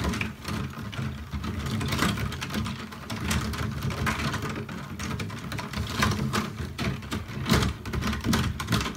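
Soapy water swishing in a glass bowl as small plastic model parts are swirled around in washing-up liquid, with scattered sharp clicks and crackles.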